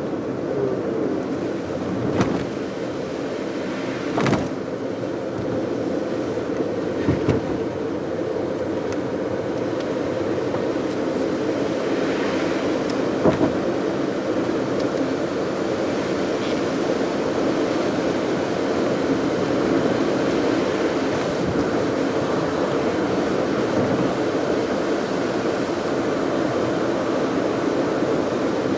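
Car driving on a wet road: steady engine and tyre noise, with a few brief knocks in the first dozen seconds or so.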